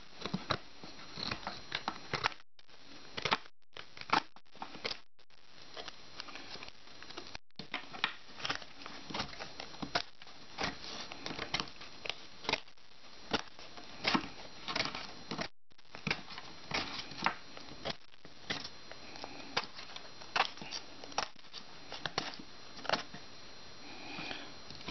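Freshly sharpened plastic ice scraper whittling a thin green stick: an irregular run of short scraping, shaving strokes, about one or two a second. The sound is broken by a few brief gaps of silence.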